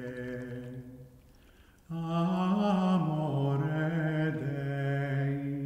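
A man's voice singing medieval Latin plainchant unaccompanied, in long held notes. One phrase dies away about a second in. After a short pause a longer phrase begins and fades near the end.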